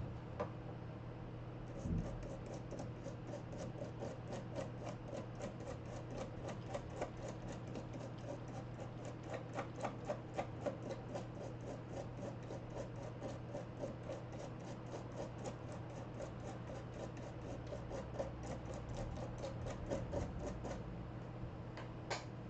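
Rapid scratchy scrubbing strokes, about five a second, as a freshly soldered laptop circuit board is cleaned of flux with alcohol. The scrubbing starts about two seconds in and stops shortly before the end, over a steady low hum.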